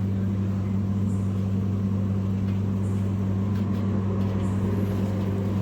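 A steady low machine hum at a constant pitch, with a faint noisy haze over it.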